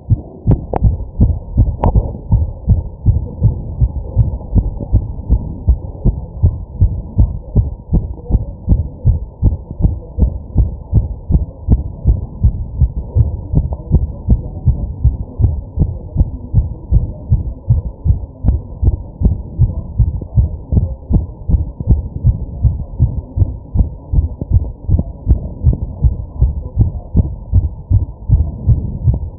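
A man's fast heartbeat: a steady, regular run of loud low thumps, over a muffled haze that fits his deep breathing.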